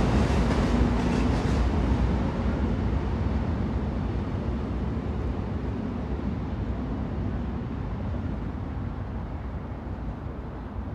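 Train noise: a rumble with a rattling hiss that grows steadily quieter, the higher hiss fading out first.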